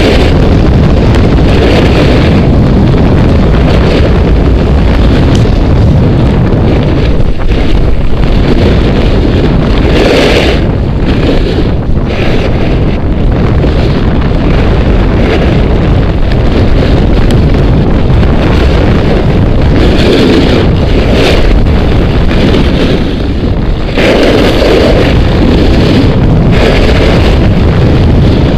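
Loud wind buffeting on an action camera's microphone while snowboarding downhill at speed, a steady roar, with the snowboard's edges hissing and scraping over packed snow in swells as it turns.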